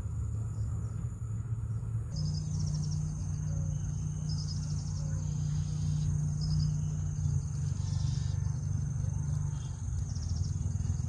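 Outdoor insect sound: a steady high whine with short pulsed chirps repeating every second or two, over a low steady rumble.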